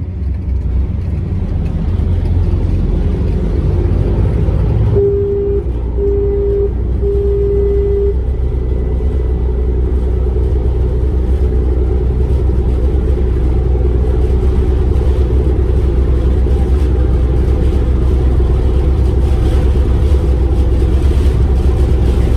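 Sightseeing boat's engine running with a steady low rumble that grows heavier about five seconds in. Three short steady tones sound at about that point.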